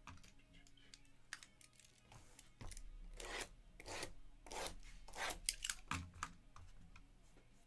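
A small blade scraping and slicing through the plastic shrink-wrap on a stack of trading-card boxes, a run of quick rasping strokes starting about two and a half seconds in and stopping a little after six seconds.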